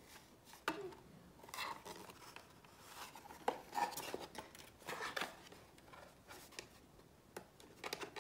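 Hands fiddling with a new GoPro Max 360 camera: scattered small plastic clicks and soft rustles as it is handled and its parts pressed and tried.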